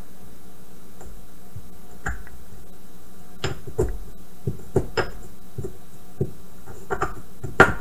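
Pestle striking and grinding dried ginger in a mortar: irregular clinking knocks, a few at first, then more frequent from about halfway in, over a steady low hum.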